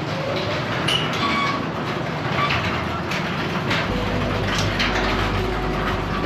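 Footsteps crunching through fresh snow over a steady rushing noise, with a few irregular knocks; a low steady hum comes in about four seconds in.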